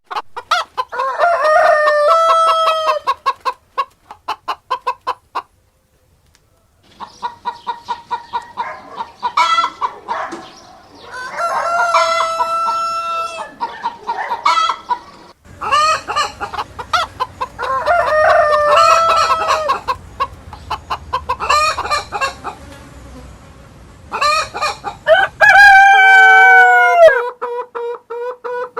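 Roosters crowing and hens clucking, heard as a string of separate clips. Long pitched crows with held notes come about a second in, around 12 s, around 19 s and near the end. Runs of quick, repeated clucks fall between them.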